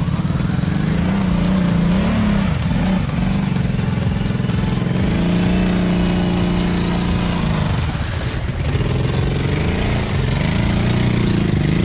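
Quad bike engine revving up and easing off in deep mud and water, the bike bogged down with its wheels churning. The revs hold high for a couple of seconds in the middle, drop briefly, then climb again near the end.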